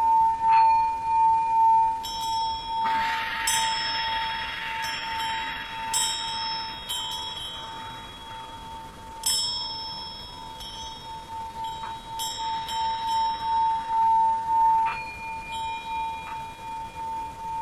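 Tibetan singing bowl holding one steady tone that wavers in a regular pulse. Over it, higher bells are struck about ten times, mostly in the first two-thirds, each ringing out.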